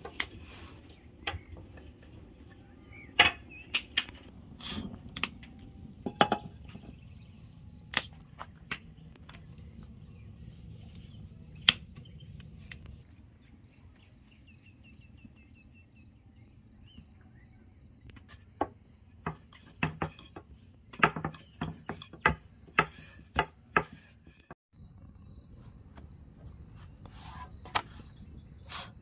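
Scattered sharp clicks and knocks of hands and cookware being handled during outdoor cooking, with a dense run of knocks about two-thirds of the way through, over a faint low background rumble.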